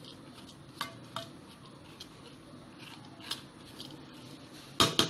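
A spoon spreading a rolled-oat crumble topping in the inner pot of an electric pressure cooker: soft scraping with scattered light clicks of spoon on pot, then a quick cluster of louder knocks near the end.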